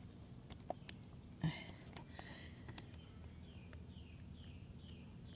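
A few light clicks and one sharp click about a second and a half in. Then, in the second half, a bird calling a series of short falling chirps, a little over two a second.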